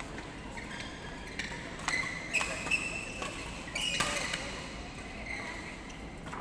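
Badminton rackets striking a shuttlecock several times in a rally, sharp pops, with court shoes squeaking briefly on the synthetic court mat between hits.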